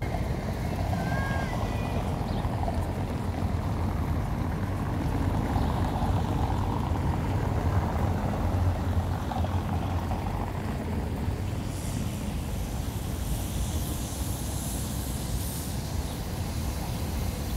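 Steady low rumble of a moving vehicle, with a few short bird chirps about a second in.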